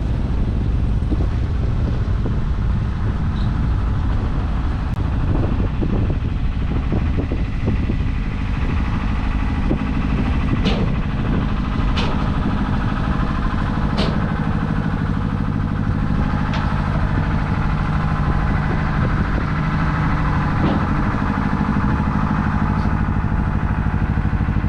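An engine running steadily, with a few sharp clicks along the way.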